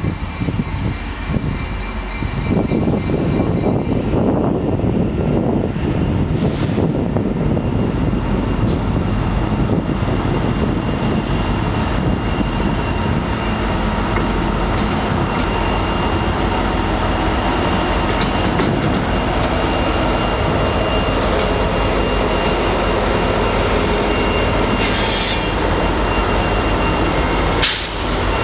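Diesel freight train passing close: an EMD SD70 and a GE C44-9W locomotive pass with their engines running, then tank cars roll by with the steady rumble of wheels on rail and thin wheel squeal. A single sharp bang, the loudest sound, comes just before the end.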